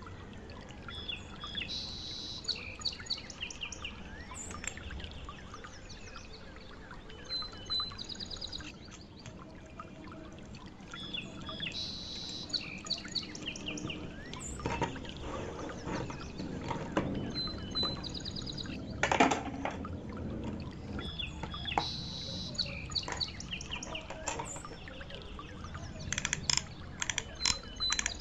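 Birds chirping, with the same short phrase of high chirps coming back about every ten seconds over a low background hum. A few knocks sound midway, and a quick run of clicks near the end.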